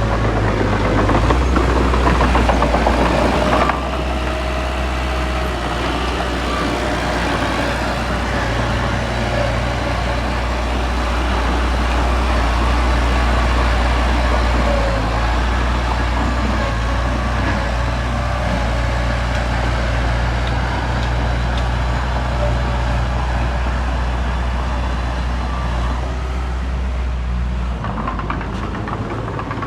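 Heavy earthmoving machine's engine running steadily with a deep, continuous drone. The sound drops a little about four seconds in, and the low drone changes near the end.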